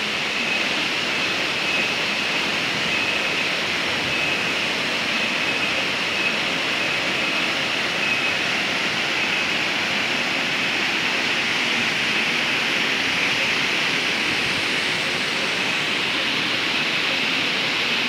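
Steady rush of a multi-tier waterfall in strong flow: an even roar of falling water. A faint, high, thin tone comes and goes above it in the first half.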